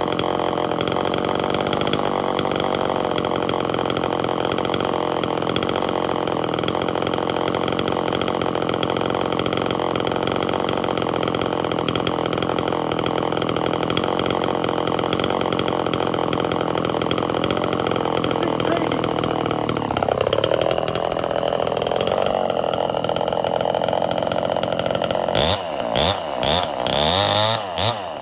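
Homelite two-stroke chainsaw running at a steady speed, with a brief dip and recovery in pitch about twenty seconds in. Near the end the throttle is blipped repeatedly, the engine speed rising and falling quickly.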